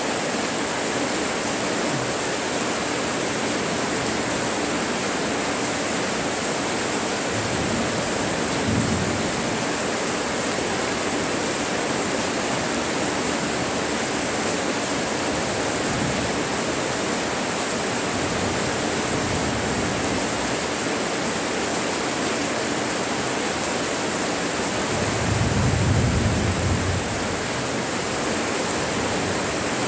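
Steady rain falling, an even dense hiss, with a brief low rumble near the end and a fainter one about nine seconds in.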